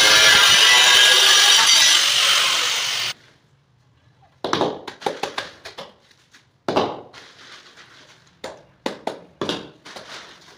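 Handheld angle grinder cutting through a ceramic tile, a loud steady scream that stops abruptly about three seconds in. After a short pause comes an irregular run of short knocks and scrapes as wall tiles are pressed and tapped into place.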